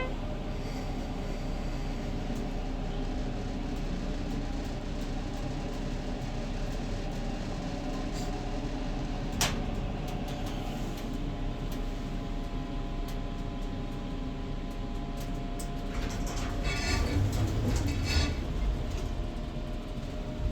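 Schindler 330A hydraulic passenger elevator running: a steady hum of the car in travel, with a single sharp click about nine seconds in and a louder stretch of rattling about sixteen seconds in.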